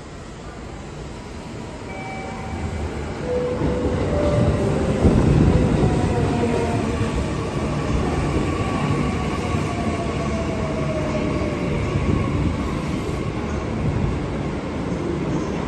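A JR Central 315 series electric train pulls into the platform. Its rumble grows louder from about two seconds in and is loudest a few seconds later as the cars roll past. Several whining tones fall slowly in pitch as the train slows.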